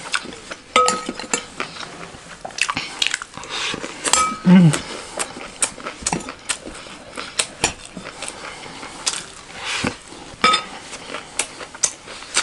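Metal spoon stirring and scooping chatpatey in a glass bowl: repeated clicks and scrapes of spoon on glass, with a short ringing clink three times.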